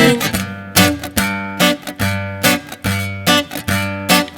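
Acoustic guitar strumming chords in a steady rhythm, about two strokes a second, in the instrumental close of the song after the last sung line.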